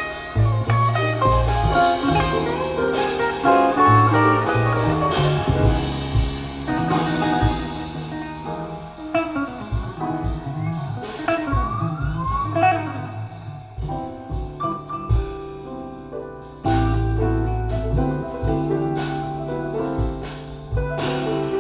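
Jazz with piano, bass line and drum kit played back from a vinyl record over a hi-fi system with Tannoy Stirling loudspeakers.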